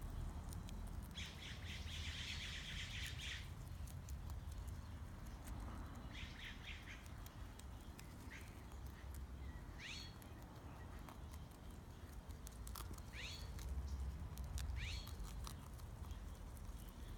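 Rabbits chewing vegetables: faint crisp crunching clicks, with a dense burst of crunching about a second in and another around six seconds. A few short rising chirps come later.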